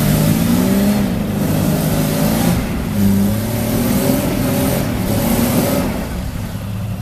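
Jeep Wrangler YJ's engine revving up and down under load as it crawls its oversized mud tyres over a rut, its pitch rising and falling; about six seconds in it eases off to a lower, steadier note.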